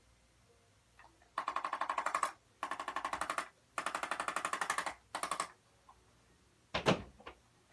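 Rapid mechanical tapping from a handheld percussive device used on the back, in four bursts of about a second each at roughly fifteen taps a second. A single sharp thud near the end is the loudest sound.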